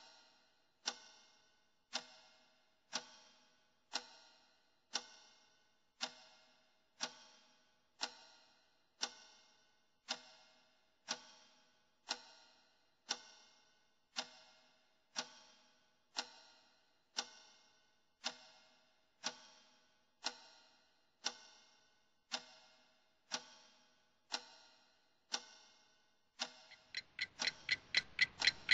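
Clock ticking, one tick a second, each tick a sharp click with a short ringing tail. Near the end the ticks quicken to about five a second and grow louder over a rushing noise.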